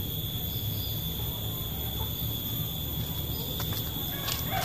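Steady high-pitched drone of insects, crickets or cicadas, over a low outdoor hum, with a few faint clicks near the end.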